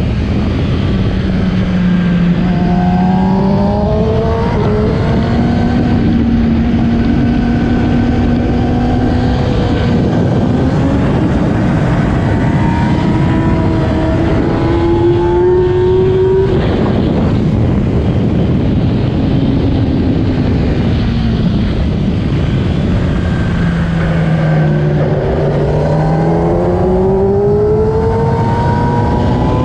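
2008 Kawasaki ZX-10R's inline-four engine at race pace, its pitch climbing and stepping down repeatedly as it shifts through the gears. About halfway through, the rising note cuts off suddenly, then falls away before climbing again near the end.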